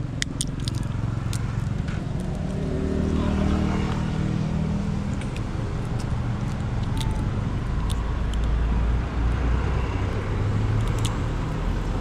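Road traffic: a motor vehicle's engine rumbling, rising in pitch as it passes a few seconds in, then a heavier low rumble later on. A few sharp clicks come in the first second or so.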